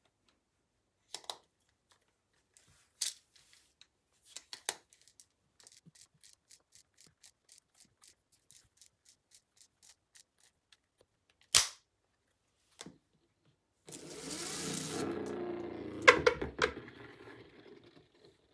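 LEGO parts clicking as they are fitted together, a few separate snaps. About fourteen seconds in, a LEGO electric motor whirs for around three seconds, spinning up a rubber-tyred wheel spinner, and several sharp clacks follow as the spinner comes off. After that the spinner keeps spinning on the wooden tabletop with a faint steady hum.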